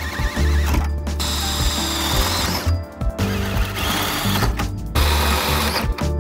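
Cordless drill with a small hole saw cutting through the van's sheet-steel roof, running in about three bursts with short pauses between them.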